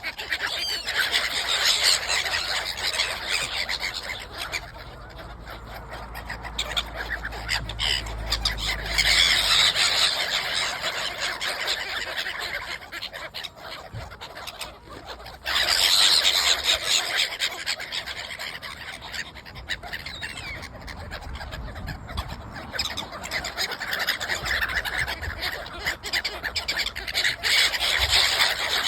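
A flock of gulls squawking and calling over one another as they compete for thrown bread in a feeding frenzy. The din comes in waves, loudest about two, ten, sixteen and twenty-eight seconds in.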